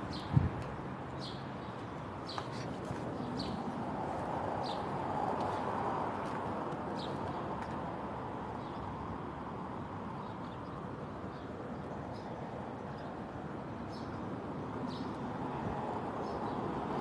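Steady rushing of strong wind, swelling about a third of the way in and again near the end, with small birds chirping briefly every second or so. A sharp knock sounds just after the start.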